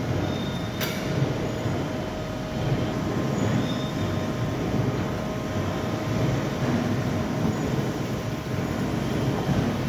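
Steel sheet processing line running: drive motor and powered conveyor rollers carrying a cut steel sheet, a steady mechanical rumble with a constant hum. One sharp click about a second in.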